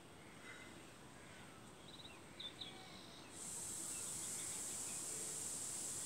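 Faint background noise with a few short, high chirps about two and a half seconds in, then a steady high hiss that starts suddenly a little after halfway and stays on.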